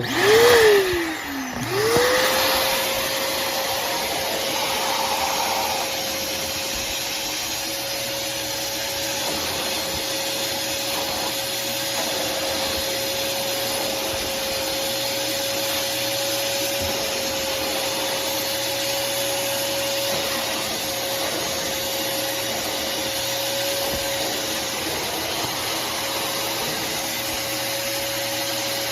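BLACK+DECKER 10-litre wet and dry vacuum cleaner switched on. Its motor whine rises and then drops away at once, and about two seconds in it starts again and runs at a steady pitch with an even rush of air.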